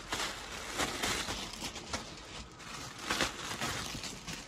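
Rustling and crinkling of folded wool shawls and their clear plastic wrappers being handled, swelling about a second in and again past three seconds.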